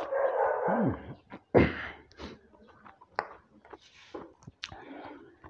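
Close-miked eating sounds: chewing and mouth noises, with fingers clicking and scraping as they mix rice on a plate. A short noisy burst comes at the start, and a sharp thump about a second and a half in.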